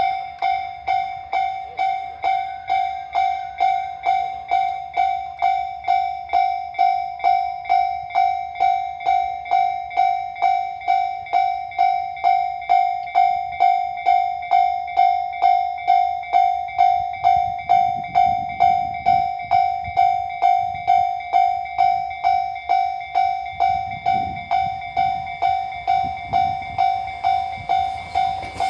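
Japanese railway level-crossing warning bell ringing steadily with a loud, repeating ding about twice a second. A low rumble rises and falls twice in the second half, under the bell.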